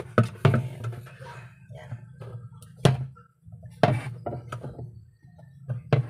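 Several sharp plastic knocks and clacks, spread unevenly, as the pulsator and its screw are handled with a screwdriver in a single-tub washing machine's plastic wash tub, over a low steady hum.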